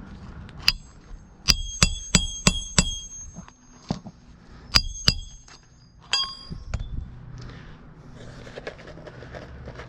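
Hammer driving short roofing nails through an asphalt shingle: a run of sharp, ringing metal strikes in a few quick bursts over the first seven seconds, then only faint background.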